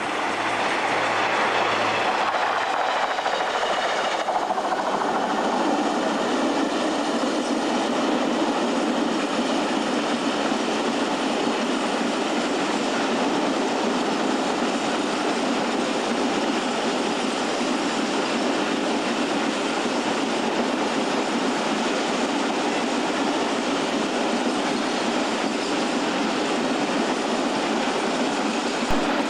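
Freight train rolling past, its wagons clattering steadily over the rail joints.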